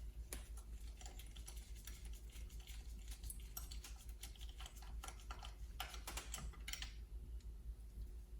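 Faint, irregular clicking of a socket ratchet and hand tools working on the fourth spark plug, with a denser run of clicks about six seconds in.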